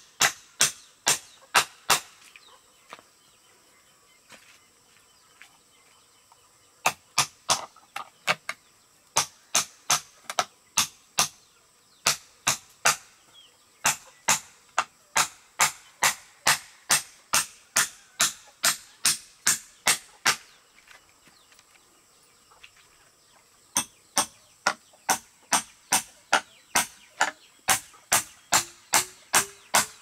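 Repeated sharp strikes of a hand tool, about two and a half a second at an even pace, in runs of several seconds broken by short pauses.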